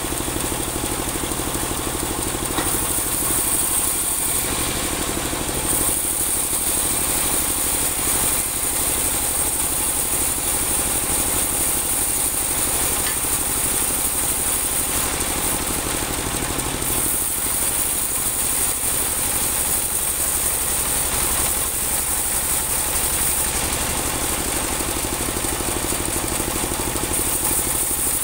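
Portable bandsaw mill running steadily on its stationary engine while the band blade saws lengthwise through a large teak log. A high hiss from the cut swells and fades several times.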